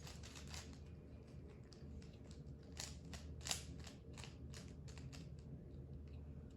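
Plastic 3x3 Rubik's cube, a smooth-turning kind, having its layers twisted: a run of irregular light clicks and scrapes, with one sharper snap about three and a half seconds in.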